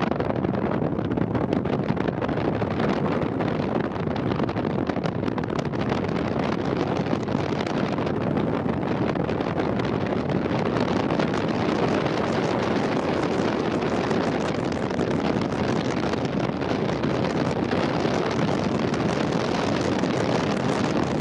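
Steady road and wind noise of a car driving at highway speed, heard from inside the car.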